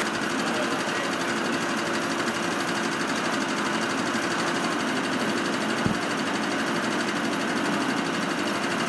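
Steady drone of an engine running at the fire scene, with a held hum and a fast even pulse. A single low thump about six seconds in.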